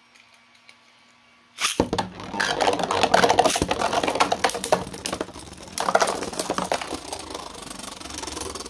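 Beyblade Burst spinning tops ripped off their launchers about a second and a half in, then clattering and clicking against each other and the plastic stadium in a fast, dense rattle with two loud clash peaks. The fight is aggressive and ends in a burst, with a top left spinning and rattling on the stadium floor.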